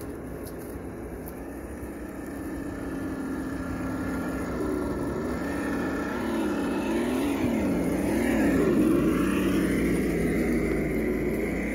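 Electric motor and gears of an RC crawler whining, the pitch rising and falling over and over as the throttle is worked, growing louder toward the end.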